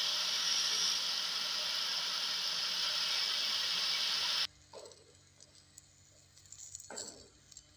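Angle grinder running with a tungsten electrode held against its disc to sharpen the point, a steady grinding hiss that cuts off abruptly about four and a half seconds in. After that there are only faint small sounds over a faint steady hum.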